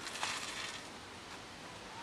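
Dry cat kibble rattling and sliding out of a tipped clear plastic tub onto concrete, for about the first second.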